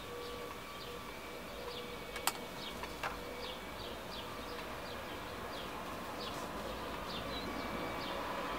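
Handling sounds at an idle sewing machine: two sharp clicks about two and three seconds in as a leather strip is set under the presser foot. Under them run a faint steady hum and a string of short, high, falling chirps, several a second, like a small bird.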